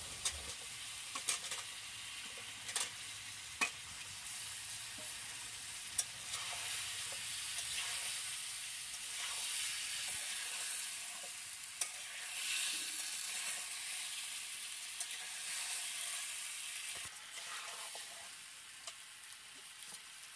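Kham aloo (greater yam) chunks sizzling in masala in an aluminium kadai as a metal spatula stirs them, a steady frying hiss broken by a few sharp clicks, most of them in the first several seconds.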